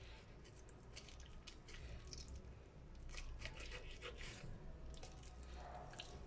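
Faint wet squishing and scattered small clicks of a knife cutting meat away from the bones of a whole raw chicken as it is deboned.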